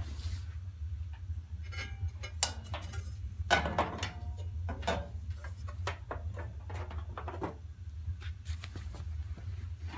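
Sheet-metal burner-access cover of a gas water heater being fitted back on: a run of metallic clanks, scrapes and rattles, the loudest a little after two and a half and three and a half seconds in.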